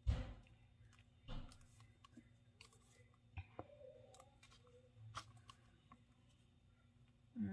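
Hands handling craft materials on a cutting mat: a thump right at the start and another about a second later, then scattered light clicks and taps, among them the snap of the plastic flip-top cap on a Mod Podge bottle being opened.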